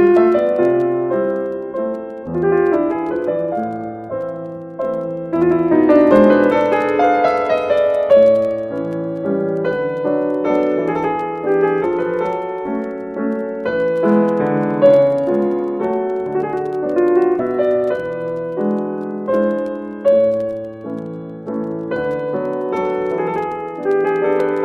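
Background piano music, a slow tune of sustained notes.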